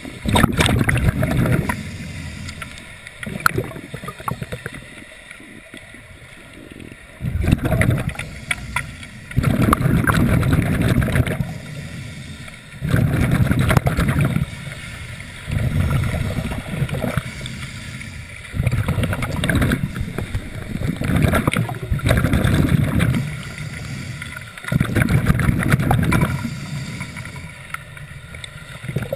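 Scuba diver breathing through a regulator underwater: a loud rush of exhaled bubbles every few seconds, with quieter stretches between breaths.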